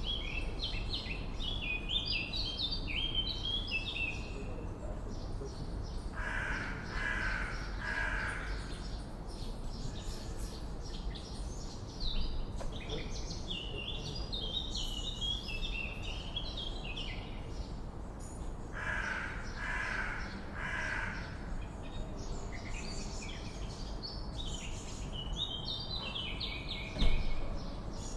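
Swallows twittering in fast, chattering runs, interrupted twice by a crow cawing three times in a row, over a steady low background rumble. A brief knock sounds near the end.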